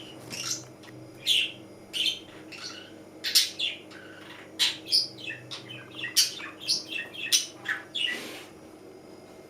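Budgerigar chirping: a run of short, sharp high chirps, about two a second, that stops shortly before the end.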